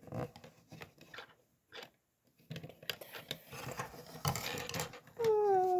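Small plastic clicks and rustles of Lego pieces being handled and fitted together, with a short pause in the middle. Near the end a child's voice starts a long, falling hum, louder than the clicking.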